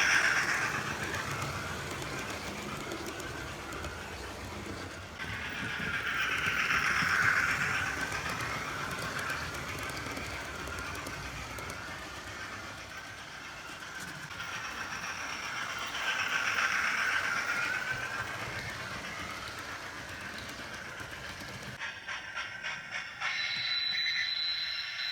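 Hornby Thompson Class A2/3 model steam locomotive running on its track, the TTS sound decoder's speaker playing steam-engine sound over the clatter of the wheels on the rails. It gets louder three times as it comes round past the microphone, and the sound changes abruptly near the end.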